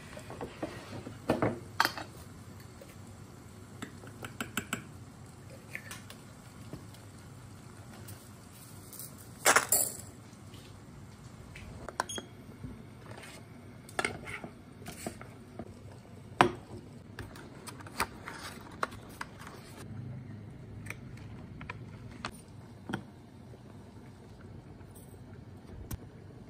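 Kitchen clatter during cooking: scattered knocks and clinks of cookware, utensils and a glass mixing bowl, with clicks from a digital kitchen timer's buttons being pressed, over a steady low hum.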